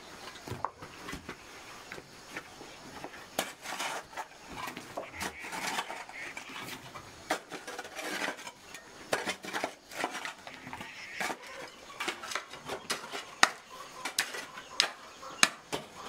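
Metal hand tools, an iron digging bar and a small hoe, striking and scraping packed soil and stones in irregular clinks and knocks, with several sharper strikes in the second half.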